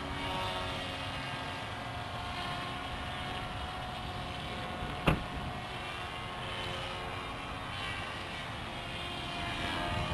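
Electric RC foam airplane's motor and propeller whining steadily overhead, the pitch drifting a little as it flies. A single sharp click about halfway through.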